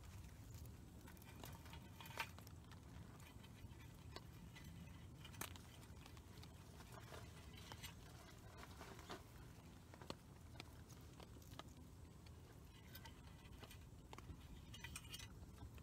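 Faint, scattered crackles and ticks from a small fire of fatwood shavings and twigs in a folding metal stove as more twigs are laid on, with a few sharper ticks about two and five seconds in.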